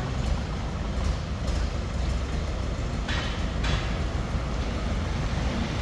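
Steady low rumble of a running vehicle engine, with a brief hiss about halfway through.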